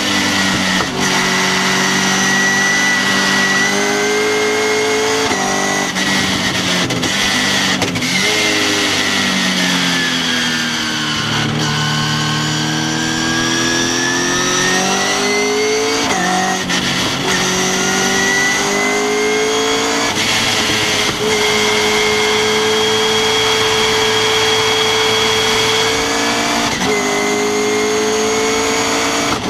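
Westfield sports car's engine heard from its open cockpit on track, its pitch climbing through each gear and dropping sharply at the gear changes, several times over. About a third of the way in the revs fall away for a few seconds, then climb steadily again.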